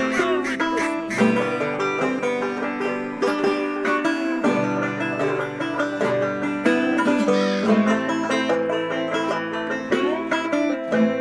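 Background music played on plucked string instruments, with many quick notes in a country or bluegrass style.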